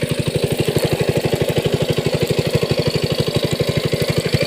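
A small engine running steadily at an even chug of about ten beats a second.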